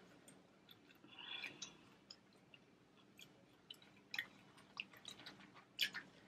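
Eating sounds from boiled crawfish: quiet scattered cracks and clicks as the shells are peeled apart by hand, with chewing.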